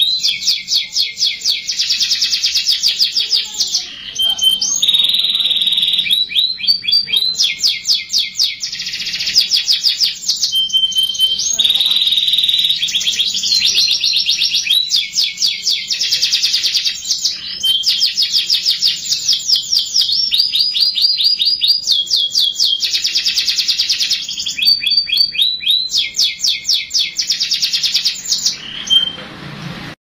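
Domestic canary singing a long, almost unbroken song of fast, even trills and rolls, switching to a new phrase every second or two, with a few short held whistled notes between them.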